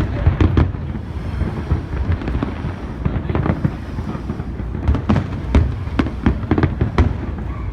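Fireworks display: a rapid, irregular string of aerial shell bursts and crackling bangs, bunched near the start and again from about five seconds in, over a continuous low rumble of further explosions.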